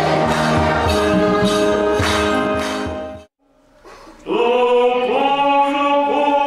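Church choir singing with a steady percussion beat, cut off abruptly about three seconds in. After a second's gap, unaccompanied voices sing a slow chant.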